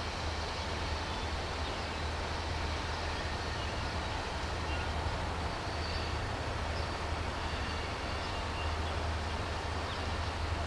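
Distant diesel locomotives, an EMD SD40-2 and a GE C40-8W, working as they approach: a steady low engine drone under an even hiss of noise.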